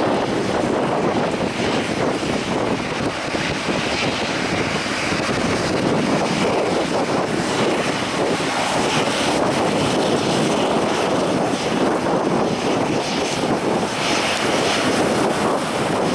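Boeing 737-800 jet engines (CFM56-7B turbofans) running at low taxi power as the airliner turns on the runway and lines up, a steady even rush with no change in power.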